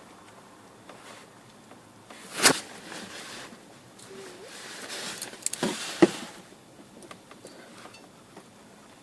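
Hands working wiring and connectors inside a cramped dashboard: rustling handling noise with two sharp clicks, one about two and a half seconds in and one about six seconds in.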